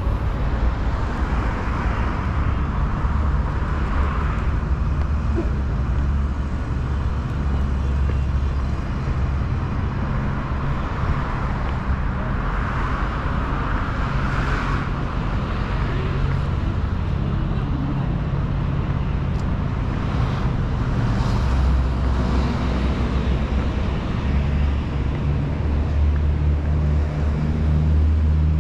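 Street traffic noise from vehicles on a multi-lane city road: a steady rumble, with several cars swelling louder as they pass.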